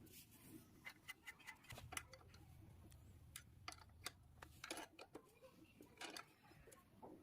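Faint, irregular clicks and ticks, a few a second, coming in small clusters.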